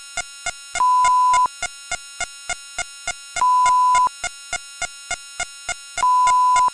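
A layered cacophony of synthesized sound effects: sharp clicks about four a second, a loud steady beep sounding three times for under a second each, and a constant bed of high steady tones.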